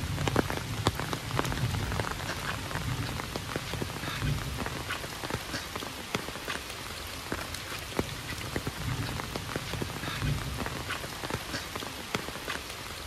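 Heavy rain falling steadily on surfaces, with many sharp, close drop impacts. A low rumble swells and fades a few times underneath.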